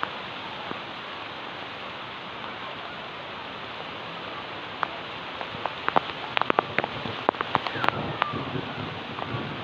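Steady rain hiss, with sharp, irregular drops tapping on a hard surface from about halfway through.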